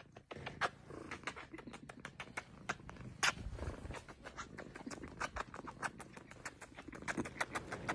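Close-up sounds of a tabby cat held against a person's face: irregular soft clicks, several a second, over a faint low rumble.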